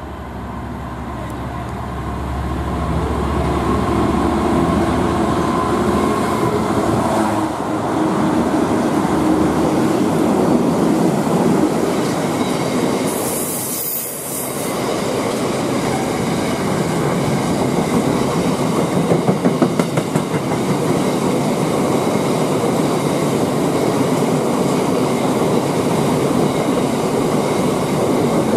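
Freightliner Class 66 diesel locomotive approaching and passing with its two-stroke V12 engine running, growing louder over the first few seconds. A long rake of container flat wagons then rolls past, with steady wheel noise and a clickety-clack over the rail joints.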